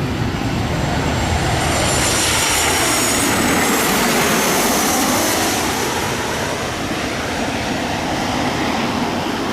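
Boeing 737 airliner's CFM56 turbofan jet engines roaring loudly as it passes close by, with a high whine that falls in pitch a couple of seconds in.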